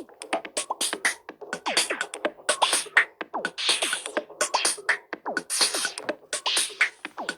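Electronic ringtone from a Nokia C5-03 phone: a fast drum-machine beat with short synth notes that slide quickly down in pitch, over and over.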